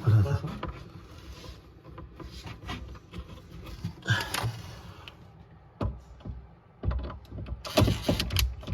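Scattered knocks and clicks from work on cabinets being fitted and screwed together, busier and louder near the end.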